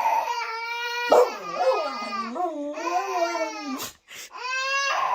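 A pet animal crying out in long, drawn-out wailing calls whose pitch wavers and bends. There are three calls in a row, with a short break about four seconds in.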